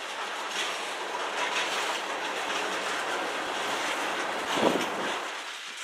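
Covered hopper cars of a freight train rolling past, steel wheels clicking and rumbling over the rail joints. About three-quarters of the way through comes one louder clank.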